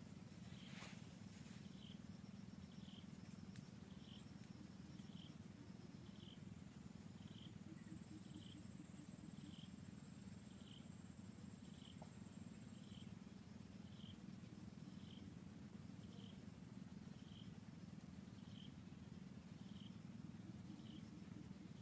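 Near silence: faint forest background with a low steady hum and a soft, high chirp repeating about once a second.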